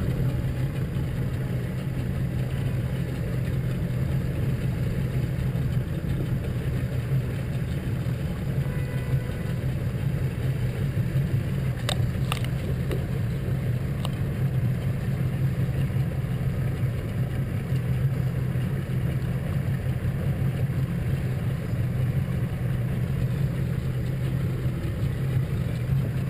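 Small motorboat's engine running steadily at low cruising speed, an even drone with hull and wind noise, broken by a few brief clicks near the middle.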